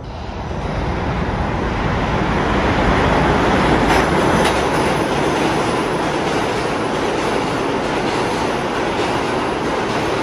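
New York City subway train running along the track, its noise building over the first couple of seconds and then holding steady, with wheel clatter and a couple of sharp clicks about four seconds in.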